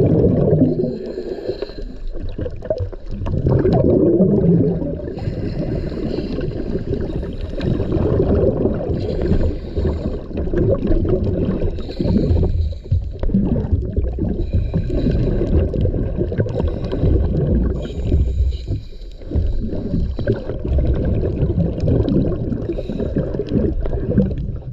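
Muffled underwater gurgling and bubbling that swells and fades unevenly.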